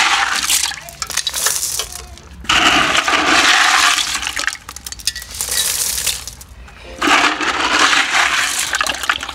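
Washed gravel poured onto an orchid bed, clattering and rattling in three pours of a second or two each, with short pauses between.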